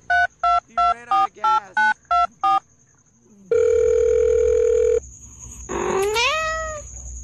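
Touch-tone phone keypad beeps, about eight quick two-pitch presses at roughly three a second, timed to a finger pressing on a cat's face. A single held electronic tone follows for about a second and a half. Then the cat meows once, the pitch rising and falling near the end.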